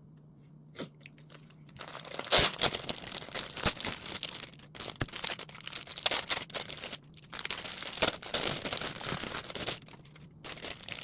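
Bread packaging crinkling and tearing as a bread is unwrapped: after a couple of near-silent seconds, a run of irregular rustles and sharp crackles.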